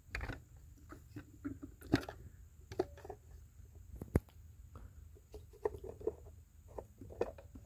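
Oil filter housing cap on a Ford 2.7L turbo engine being unscrewed by hand and lifted out with its cartridge filter: faint scattered clicks, scrapes and rubbing, with one sharp click about four seconds in.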